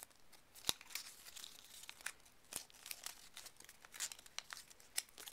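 A sheet of white paper being folded and creased by hand into an origami paper cube: soft crinkling with scattered sharp little crackles as the folds are pressed.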